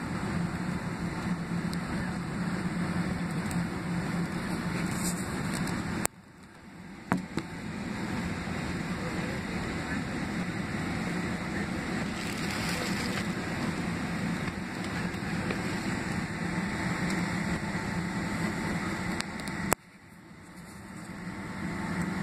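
Steady cabin noise inside a Boeing 767-300ER on the ground at taxi, a low hum from its General Electric CF6-80C2B6 engines and the cabin air. The sound drops away abruptly twice, about six seconds in and near the end, and swells back over a couple of seconds each time.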